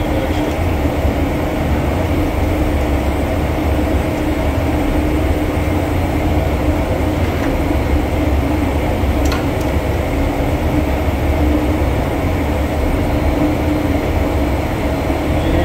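Steady drone of plant machinery running in a boiler room: a deep low rumble with a constant hum over it, unchanging throughout. A faint click or two sounds near the middle.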